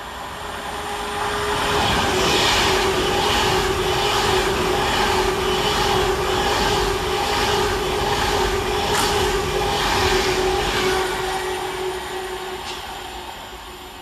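Avanti West Coast Class 390 Pendolino electric train passing close by, building up and then fading away. A steady whine sounds over the rumble of wheels on rail, with a regular clatter of about two beats a second as the wheels run over the track.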